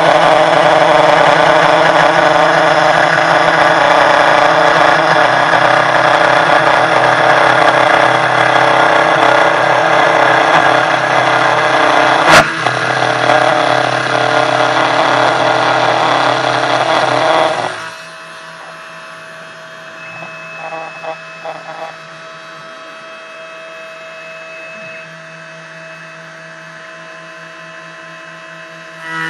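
CNC 1610 Pro desktop router's spindle milling with a 3 mm end mill in 0.4 mm passes: a loud, steady cutting noise over the spindle's whine, with a sharp click about twelve seconds in. About eighteen seconds in the cutting stops suddenly, leaving only the spindle's much quieter steady hum with a few faint rattles, until the cutting starts again at the very end.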